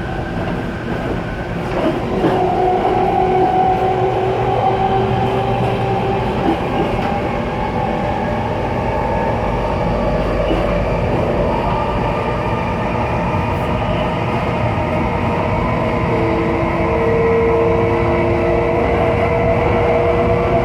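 Running noise of a Taiwan High Speed Rail express heard at the gangway between two cars: a steady rumble and rush with several humming tones that drift slowly higher. A new pair of humming tones joins about three-quarters of the way in.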